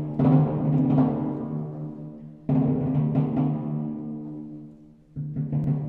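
Soundtrack music: a loud, low chord is struck three times, about every two and a half seconds, and each one rings out and fades before the next.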